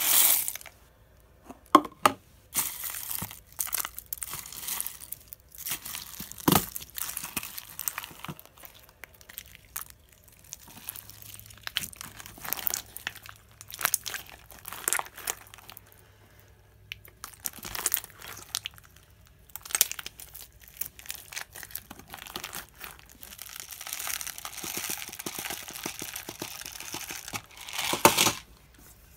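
Cut plastic straw pieces poured into glue slime, then a hand squishing and kneading the sticky slime packed with straw bits and small plastic beads. It gives irregular crackling and clicking, with the sharpest clicks about two seconds in and near the end.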